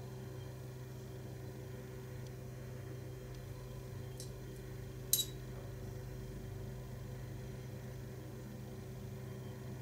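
Steady low hum throughout, with a faint click about four seconds in and a single light clink a little after five seconds.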